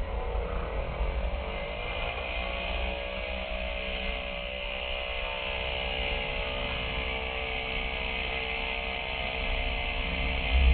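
Moki 250 five-cylinder radial engine of a large-scale RC Fw 190 running in flight: a steady droning note whose pitch rises a little a second or two in, then holds.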